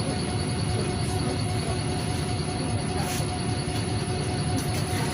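Steady low rumble of a NefAZ 5299 city bus on the move, its Cummins ISBe diesel and road noise heard from inside the cabin, with a thin steady whine over it.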